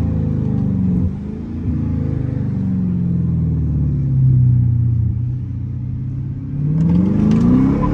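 Chrysler 300S's Hemi V8 running loud through an aftermarket Carven R-Series exhaust with the mid-muffler and resonator deleted. The engine note drops and settles over the first few seconds, then climbs steadily near the end as it accelerates.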